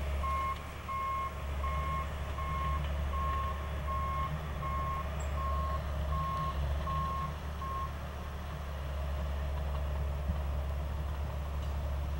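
John Deere 450 crawler bulldozer's engine running steadily while its backup alarm beeps at an even pace, about one beep every three-quarters of a second, as the dozer reverses. The beeping stops about eight seconds in while the engine runs on.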